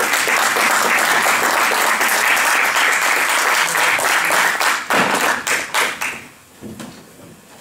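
Audience applauding steadily, then thinning to scattered claps and dying away about six seconds in.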